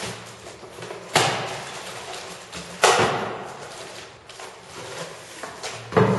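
Cardboard packaging being handled: carton flaps and the boxed product knocking and scraping against the shipping box, with plastic wrapping rustling. There are two sharp thuds about a second and three seconds in, each trailing off into rustling, and another near the end.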